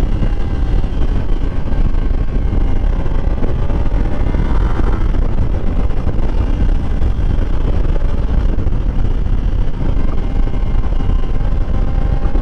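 Kawasaki Ninja sport bike's engine running at cruising speed, heard under heavy wind rush on the helmet-mounted microphone. The engine note shifts briefly about four to five seconds in.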